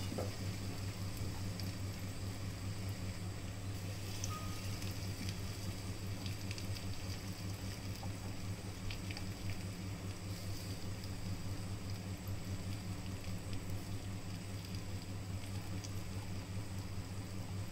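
Semolina-coated elephant foot yam slices shallow-frying in a little oil in a nonstick pan: a soft, steady sizzle with faint scattered crackles, over a low steady hum.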